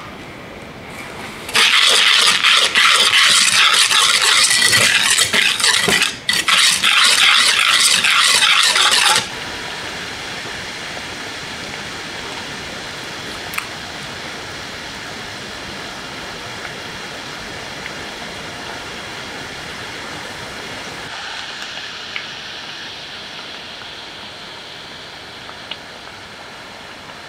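Loud, rough rasping of sugar and cinnamon being mixed in a metal pan, lasting about seven seconds with a short break in the middle. This gives way to churro dough frying in hot oil, a steady sizzle with a few small pops.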